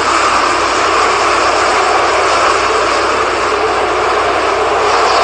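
Strong hurricane wind blowing steadily through trees, a loud, unbroken rush with no gaps or separate gusts.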